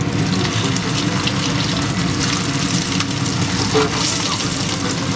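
A beef chapli kebab patty topped with a tomato slice shallow-frying in hot oil in a frying pan: the oil sizzles and crackles steadily around it.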